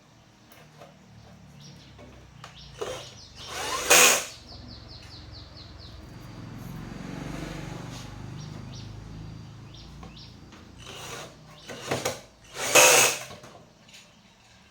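A small power-tool motor running, with scattered clicks and two short, loud bursts of noise: one about four seconds in and one near the end.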